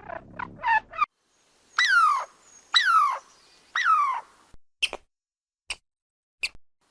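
Squirrel calling: a quick run of short chirps, then three longer calls about a second apart, each sliding down in pitch, followed by a few short, sharp chips near the end.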